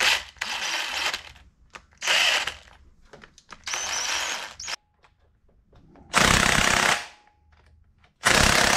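Handheld power tool run in six short bursts, driving down the fasteners of a Yamaha Banshee two-stroke twin's cylinder head. The last two bursts are louder and heavier.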